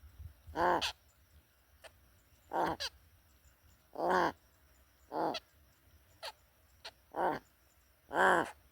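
Large-billed crow calling: about six short, harsh caw-like calls at uneven intervals of a second or two, with a few faint sharp ticks between them.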